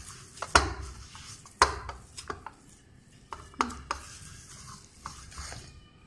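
A hand kneading and gathering soft coriander and gram-flour dough in a steel plate: fingers scrape and rub against the metal, with several sharp knocks on the plate.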